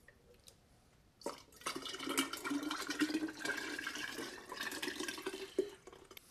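Rum and chopped vanilla beans poured from a blender jar through a stainless steel funnel into a glass jar, splashing and trickling. The pour starts about a second in and runs for about five seconds.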